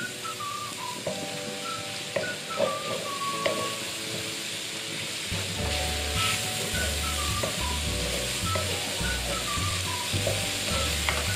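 Ground spice paste sizzling as it is sautéed in a hot wok and stirred with a wooden spatula, cooking until fragrant. Background music plays along, with a bass line coming in about halfway.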